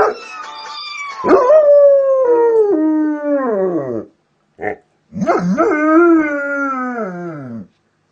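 A dog howling: two long howls, each sliding down in pitch, with a short yip between them.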